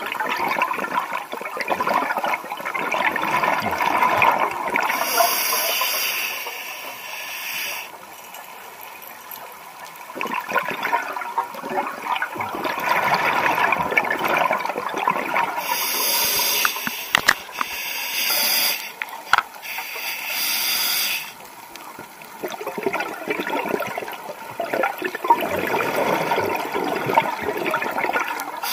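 Scuba regulator breathing heard underwater. Long spells of exhaled bubbles gurgling alternate with a few shorter hisses of air drawn through the regulator on each inhalation.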